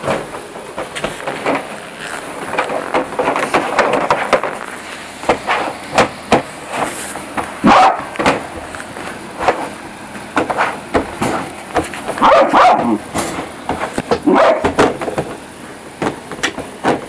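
Eleven-week-old Newfoundland puppy barking inside his crate, angry after a bath. His barks come in several bursts, mixed with repeated knocks and bangs as he slams around in the crate.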